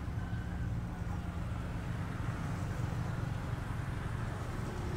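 Steady low background rumble with a faint hum, no distinct events.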